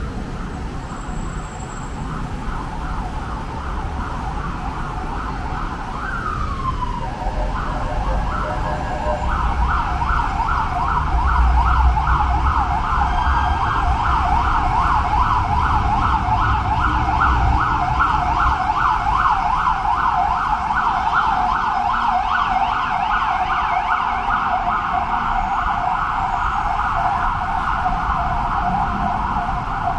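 Emergency vehicle siren in a rapid yelp, its pitch sweeping up and down about three times a second. It is faint at first, glides down once about six seconds in, and grows louder from about ten seconds in. A low rumble of road traffic runs underneath, heaviest around the middle.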